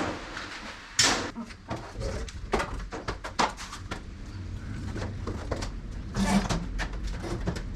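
Irregular knocks, bangs and scraping from hands-on demolition work, with the loudest bang about a second in.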